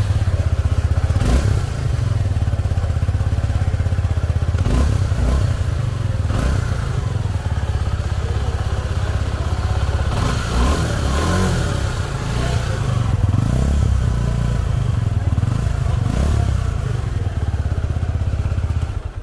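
Suzuki Gixxer SF250 motorcycle's 249 cc single-cylinder engine running, heard through its exhaust as a deep, steady low note with a few short louder blips along the way. It cuts off suddenly at the end.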